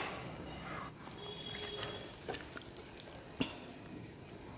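Soft, close-miked wet chewing and mouth sounds from a person eating noodles and fried egg, with a few short clicks.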